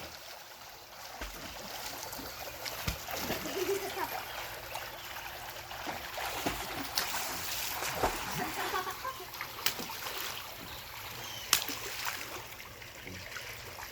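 Pool water splashing and sloshing as a dog swims and paddles, with a few sharper splashes along the way.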